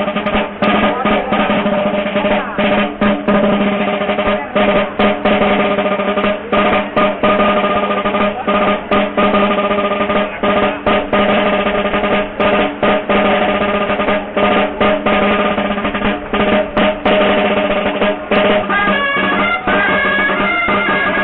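Rolling beats on a traditional tabalet snare drum under a steady held note from dolçaines (Valencian shawms). About 19 seconds in, the dolçaines break into a moving melody.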